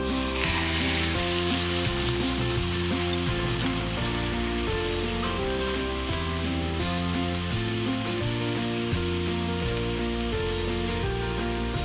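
Linked sausages frying in a cast-iron skillet, a steady sizzle that is loudest in the first couple of seconds.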